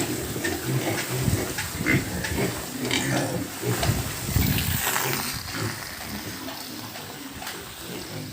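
Pigs in a pen, piglets among them, giving many short, irregular calls that overlap. The calls thin out and grow quieter after about five seconds.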